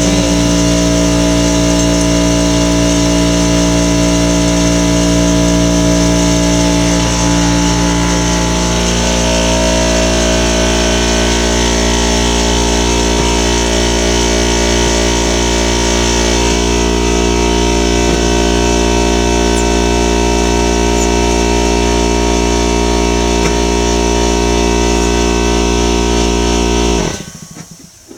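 A motor running steadily at a constant pitch, stopping abruptly about a second before the end.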